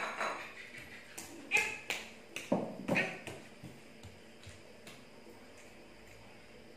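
Short sharp clinks and knocks of plates and bowls being handled at a meal table, several close together in the first three seconds, then only a few faint ticks.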